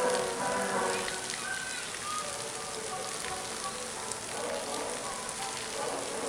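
Outdoor night ambience: a steady hiss with many small ticks through it, under faint indistinct voices and music, the music clearest in the first second.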